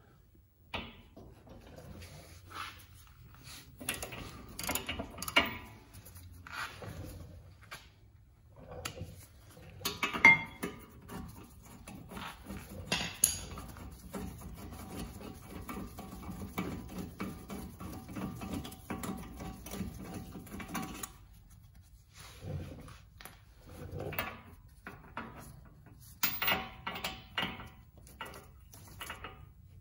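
Hand tools clicking and clanking at a car's front brake caliper as its mounting bolts are undone with a ratchet and deep socket. Faint background music runs underneath.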